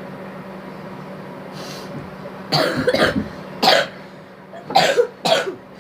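A person coughing about four times in the second half, over a steady low hum.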